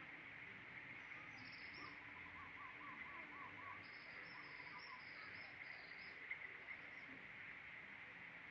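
Faint forest ambience: a bird gives a quick run of about eight short rising-and-falling notes, with higher chirps around it and a steady high insect hum underneath.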